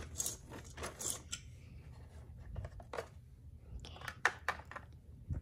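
Plastic Littlest Pet Shop figurines handled and set down on a plastic toy playset: scattered light clicks and taps of plastic on plastic.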